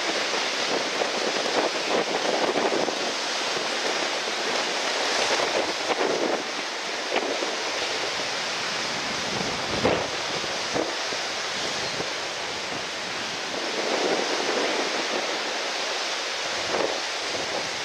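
Strong gusty wind buffeting the microphone over the rush of breaking surf, swelling and easing, with a sharper gust about ten seconds in.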